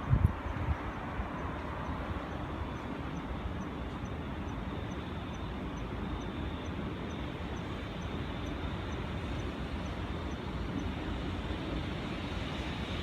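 Freight train of an EF65 electric locomotive and Taki tank wagons passing, with a steady rolling noise and a few low thumps at the very start.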